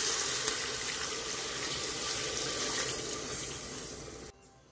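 Water poured in a thin stream into an aluminium pressure cooker over sautéing chicken and vegetables: a steady splashing that gradually gets quieter, then stops abruptly near the end.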